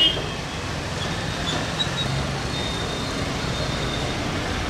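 Steady street traffic noise, a continuous low rumble of vehicles.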